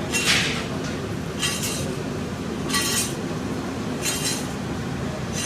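Metal spatulas clanging against an iron tawa griddle, chopping and tossing brain masala takatak-style. There are about four ringing strikes, a little over a second apart, over a steady background hiss.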